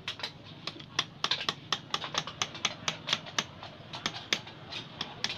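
Rapid, irregular clicking and tapping of a thin metal hand tool against the metal clutch and pulley parts of a scooter's belt transmission, several sharp clicks a second.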